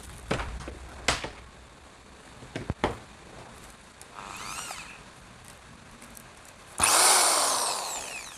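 Worx WX317 600 W corded hammer drill: a few handling clicks and knocks, then a short quiet whirr about four seconds in. Near the end the motor is triggered at full speed and winds down, its pitch falling as it fades.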